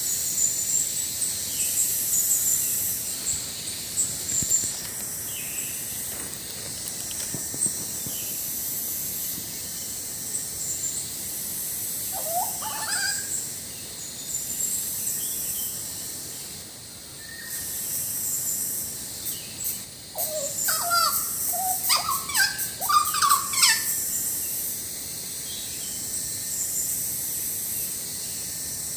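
Hooded butcherbird singing loud, clear whistled notes: one short rising and falling phrase about twelve seconds in, then a run of fluting notes from about twenty to twenty-four seconds in. A steady high insect drone runs underneath.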